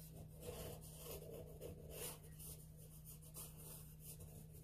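Pencil sketching on sketchbook paper: faint, irregular strokes of the lead drawing quick loose lines, over a steady low hum.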